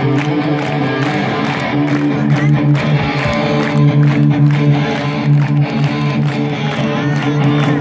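Live rock band playing, electric guitars to the fore, over a steady drum beat, recorded amid the concert crowd.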